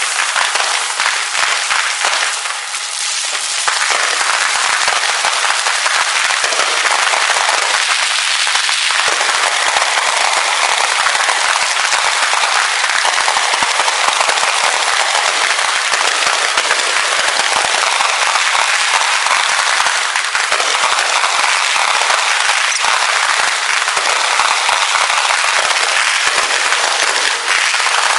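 Fireworks display: a dense, continuous crackle of many overlapping bursts and pops, with little deep boom in it.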